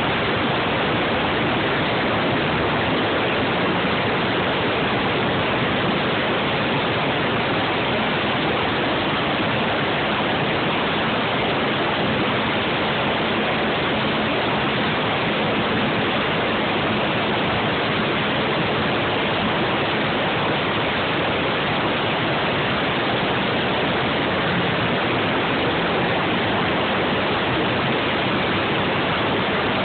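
Steady rushing wind on the microphone of a Suzuki Eiger quad riding along a road, masking the engine.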